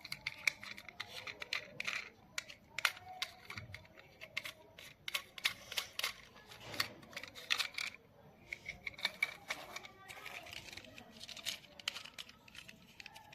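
Irregular light clicks and taps of small toy cars being handled.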